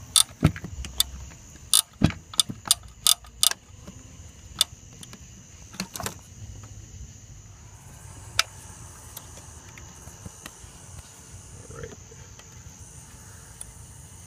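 Sharp metal clicks and clinks from bolts and small engine-bay parts being handled by hand: a quick, uneven series of about ten in the first few seconds, then a few scattered single clicks.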